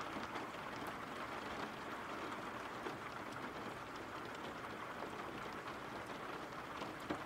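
Steady rain ambience: an even hiss of falling rain with scattered faint drop ticks.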